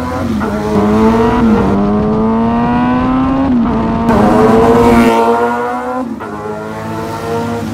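Kawasaki Z900 SE's inline-four engine running through a full aftermarket exhaust with a bomb muffler, accelerating hard: the pitch climbs and drops back at each upshift, twice. The sound jumps abruptly at a few edits between shots.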